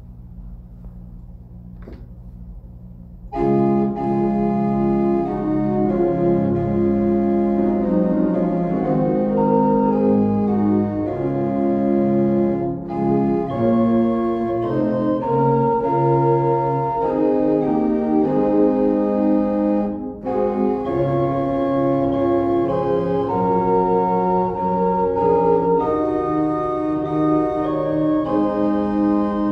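A faint low hum, then about three seconds in an organ starts playing a hymn in held chords, with brief breaks between phrases.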